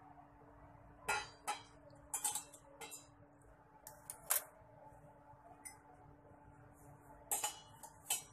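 Steel tea strainer clinking and tapping against a drinking glass: short sharp clinks about a second in, around two to three seconds, once about four seconds in, and a cluster near the end, over a faint steady hum.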